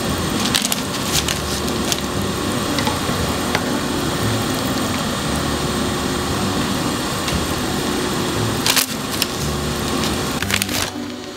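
Water at a rolling boil in a frying pan, a steady bubbling hiss, as bagel-dough rolls are boiled before baking. A few sharp clicks of a plastic slotted turner against the pan stand out, the loudest about nine seconds in and a couple more near the end.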